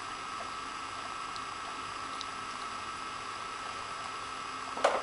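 Dog nosing at a plastic Nina Ottosson Dog Twister treat puzzle: a few faint ticks over a steady hiss, then a sharp knock near the end.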